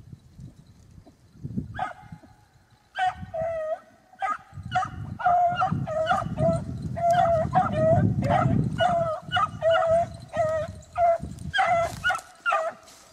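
Beagle hounds baying on a rabbit's scent trail: repeated short, pitched bawls coming about two a second, starting about two seconds in and then running on steadily.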